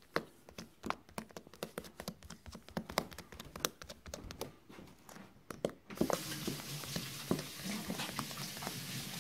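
Fingers repeatedly poking and pressing into sticky homemade glitter slime, making quick sticky clicks and pops: the slime is still sticky and not yet kneaded smooth. About six seconds in a steady hiss comes in under the pops.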